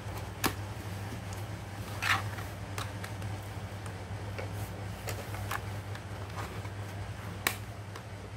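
A few sharp clicks and a short scrape about two seconds in, from the plastic casing of an Asus X441BA laptop being handled and pried apart, over a steady low hum.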